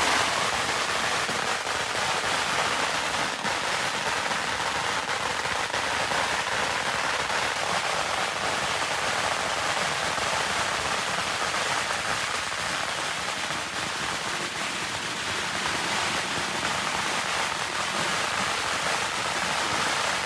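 A long string of firecrackers going off on the ground: a rapid, unbroken crackle of small bangs that keeps up at an even level throughout.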